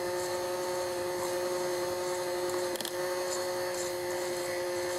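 Electric stand mixer running at a steady speed, its beaters whipping a cream cheese and egg cheesecake filling in a steel bowl. There is one light click a little before halfway.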